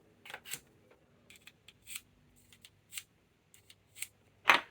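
About a dozen short, sharp scrapes and clicks from a small pocket-knife blade being handled after sharpening, spaced irregularly, with a louder one near the end.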